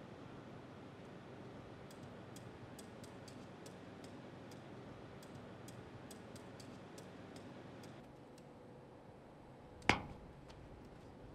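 Faint, irregular light ticks of a white cane's tip tapping on paving. Near the end comes a single sharp knock, the loudest sound.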